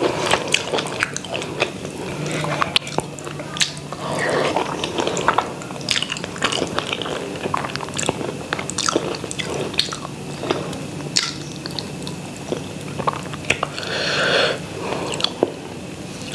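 Close-miked chewing and biting of rice and chicken curry, with many short wet smacks and clicks from the mouth, and fingers squishing rice and curry together on the plate. A faint steady low hum runs underneath.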